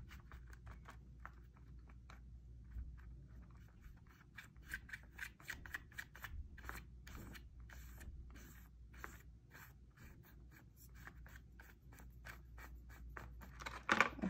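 Paintbrush stroking paint onto a crinkled plastic water bottle: faint, quick, scratchy brushing strokes, with a louder rustle of the plastic near the end.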